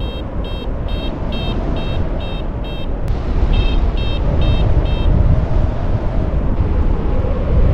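Paragliding variometer beeping in quick, evenly spaced short high beeps, about two to three a second, the climb tone that signals lift. The beeping pauses briefly about three seconds in, resumes, and stops about five seconds in. Steady wind rumble on the microphone from the airflow runs underneath.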